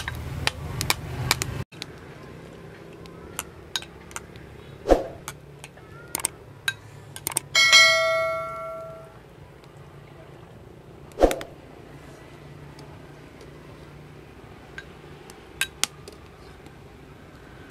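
Metal ladle tapping and clinking against a glass bowl and an aluminium hotpot, scattered light taps with a few sharper clinks. About seven and a half seconds in, one strike rings out bell-like and dies away over a second or so.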